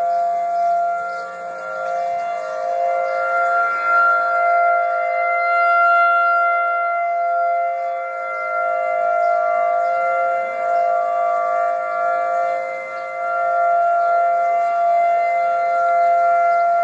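Tornado siren sounding a steady note made of several tones at once, held in pitch, its loudness swelling and fading every few seconds.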